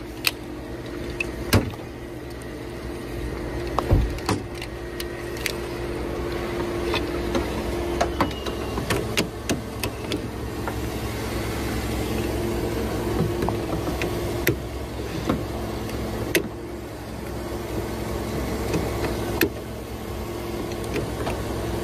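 A vehicle engine idling steadily, with a few sharp clicks and knocks as a hood is opened and jumper-cable clamps are handled at a battery, the loudest about four seconds in.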